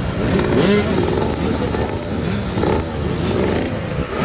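Several 65cc two-stroke motocross engines revving hard together. Many overlapping pitches rise and fall as the throttles are blipped up to the rev limit.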